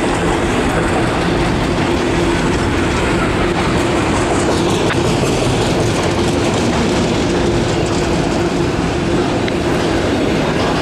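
Freight train autorack cars rolling past close by, their steel wheels running over the rails, with a steady tone running underneath.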